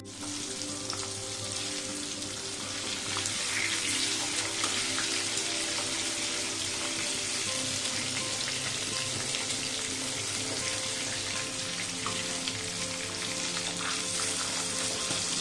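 Fish pieces deep-frying in hot oil in a steel kadai over medium heat: a steady, dense sizzle and crackle.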